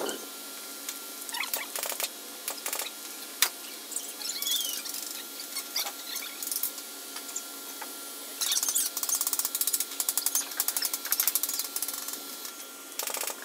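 A few scattered sharp clicks and one loud knock, then a rapid ratchet-like clicking that runs for about four seconds from around eight seconds in.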